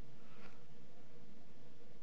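Room tone: a steady low hiss with a faint hum, and one faint click about half a second in.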